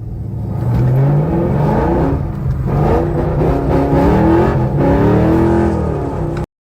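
A car engine accelerating hard, its pitch rising several times in a row as it revs up, then cutting off abruptly near the end.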